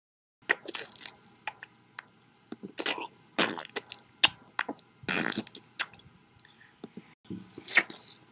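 Plastic wrapping on a dummy body being cut with a knife and pulled apart: irregular crinkles, cracks and squishes, with a longer squelching stretch about five seconds in.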